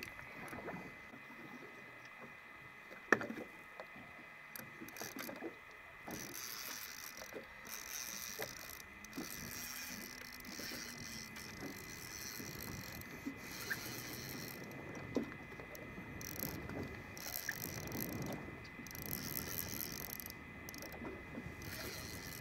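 Shimano Saragosa spinning reel being cranked in stretches against a hooked cobia, with small mechanical clicks and water slapping at the boat's hull. One sharp knock about three seconds in is the loudest sound, and a faint steady high tone runs underneath.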